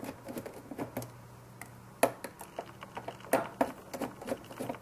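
Irregular clicks, taps and small knocks of hands handling and unfastening the front panel of a homemade nixie-tube boombox clock, the sharpest about two seconds in. A faint steady low hum runs underneath.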